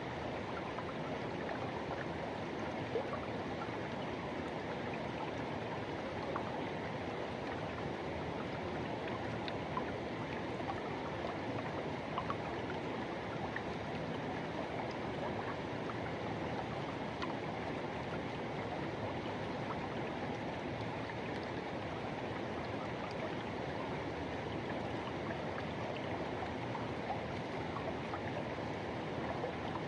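A river rushing over rocks: a steady, even noise of flowing water with small splashes scattered through it.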